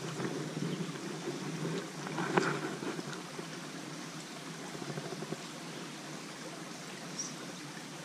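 Small creek flowing steadily over shallows, with a short, louder sound about two and a half seconds in.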